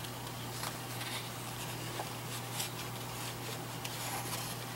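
Scissors cutting through card stock: a few faint, irregular snips over a steady low hum.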